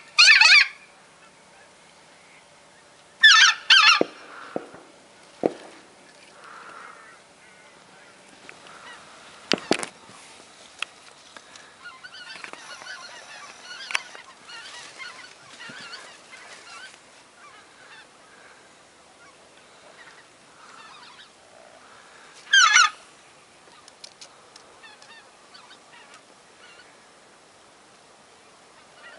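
Goose call blown in short, loud honking bursts: one at the start, a quick double about three seconds in, and another about twenty-two seconds in, with faint knocks between.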